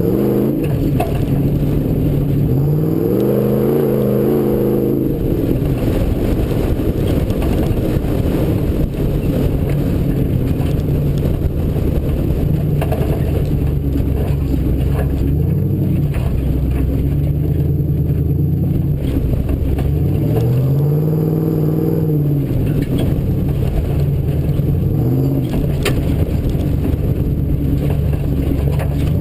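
Bronco off-road race vehicle's engine running under load, revving up and falling back several times as the throttle is worked, over a steady loud low rumble.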